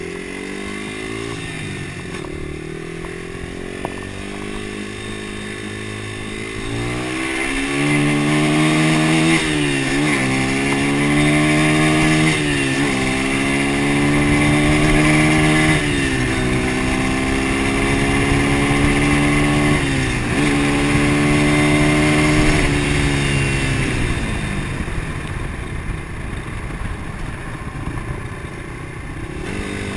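1991 Honda XR100R's single-cylinder four-stroke engine pulling the bike along the road, steady at first, then from about seven seconds in it picks up speed, its pitch climbing and dropping sharply about five times as it is shifted up through the gears, before the revs fall away near the end.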